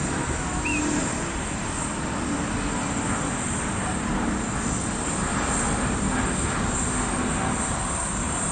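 Airbus A350-900's Rolls-Royce Trent XWB turbofan engines climbing out after takeoff: a steady jet engine rush with no clear rise or fall.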